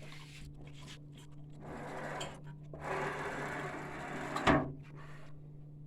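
UV printer being powered up: a steady electrical hum starts at once, then a couple of seconds of mechanical rubbing and whirring from the moving parts, and one sharp clack about four and a half seconds in.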